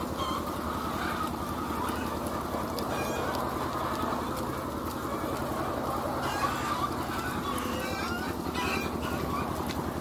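A large flock of caged laying hens clucking and calling together, over a steady low mechanical hum.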